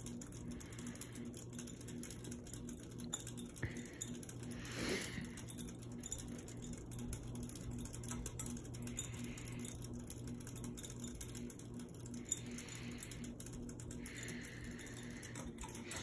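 Hampton Bay Gazebo II ceiling fan running, a faint steady motor hum with a soft pulse about three times a second and light air noise from the spinning blades.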